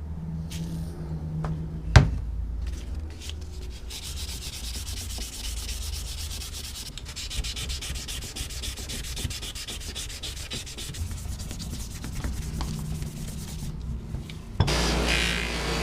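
Metal pliers being sanded, a dense scratchy rubbing that runs on steadily for about ten seconds. A single sharp knock about two seconds in is the loudest moment, and near the end the sound cuts to a louder, steadier noise.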